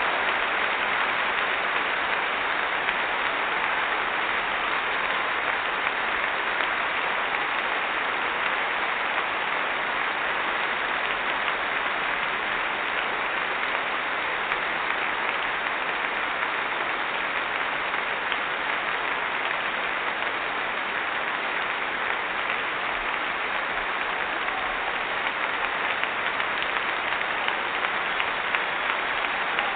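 A large audience applauding steadily: dense, even clapping from many hands, with no single claps standing out and no let-up.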